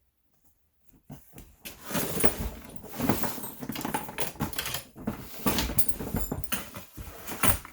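Leather tool belt being handled and shifted around, with rustling and scattered clicks and knocks of its metal hardware, starting about a second in.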